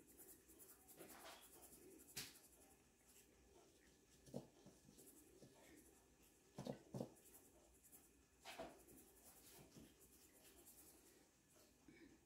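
Near silence, with faint scratchy rustles and about five soft, scattered taps as a dry flour topping is shaken from a bowl over apples in a baking dish.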